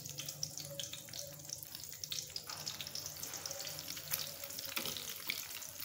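Egg-coated potato-and-chicken cutlets sizzling in hot oil in a karahi: a steady, dense crackle of shallow frying.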